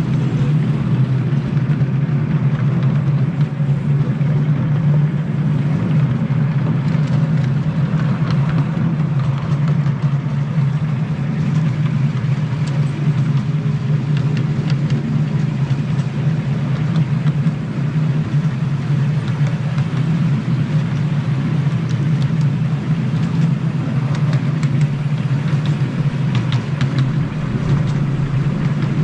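Small engine running steadily at an even pitch for the whole stretch, with faint clicks and ticks over it.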